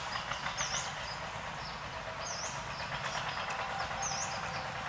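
Birds chirping, with a high call that dips and rises repeated three times, and other short high chirps, over a steady low rumble.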